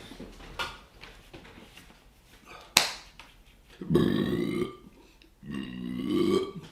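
Two drawn-out, loud burps, the first about four seconds in and the second about a second and a half later, preceded by a single sharp click.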